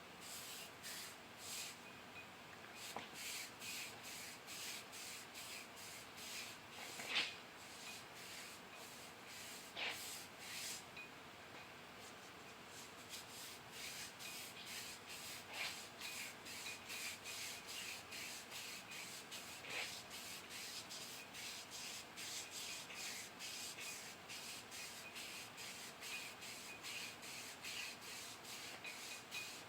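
Crankshaft journal being polished with a flat shoestring: faint rhythmic rubbing strokes, about two a second, as the string is worked back and forth around the journal.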